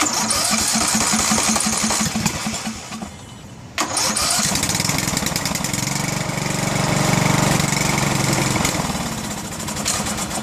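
Craftsman LT1000 riding mower's engine being cranked by its electric starter in two tries: a rhythmic cranking for about three seconds, a short break, then a longer crank that swells in the middle and fades. The engine is not yet starting properly and still needs tuning.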